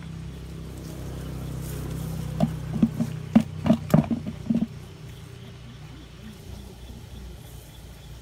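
A low, steady motor hum that cuts off about four and a half seconds in, with a run of sharp clicks and knocks during its last two seconds.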